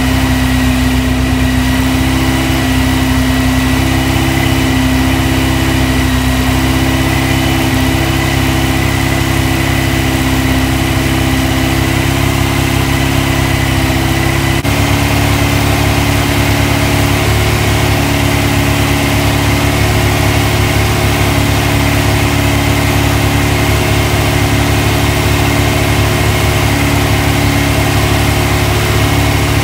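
Freshly built 2054cc air-cooled VW flat-four stroker engine with dual carburettors running steadily during its cam break-in. Its note shifts slightly and suddenly about halfway through.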